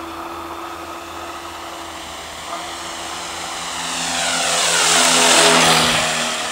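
RC Cessna 182 model plane's motor and propeller making a low, fast pass: the hum grows louder from about three and a half seconds in, peaks near five and a half seconds, and drops in pitch as the plane goes by.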